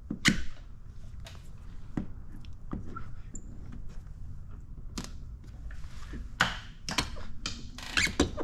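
A hand squeegee working wet paint protection film onto a truck fender: scattered short taps, clicks and brief swiping strokes, with a few sharper swipes in the second half.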